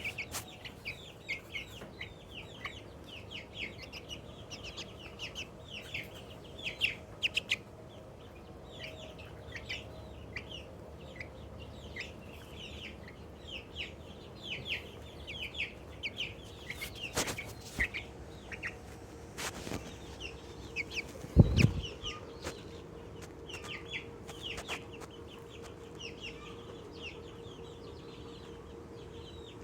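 Young Australorp chicken making rapid high-pitched chirps, several a second with brief pauses: excited, happy calls. One loud thump about two-thirds of the way through.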